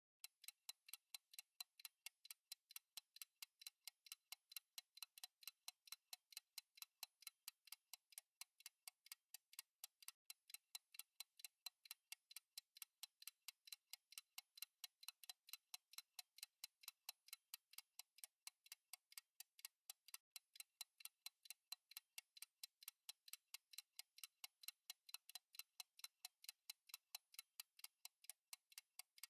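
Faint, steady ticking of a clock, even ticks about four a second, typical of a countdown timer.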